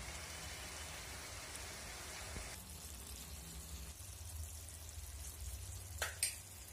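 Bitter gourd curry simmering and sizzling faintly in a frying pan. The hiss drops off abruptly about two and a half seconds in, and two short clicks come near the end.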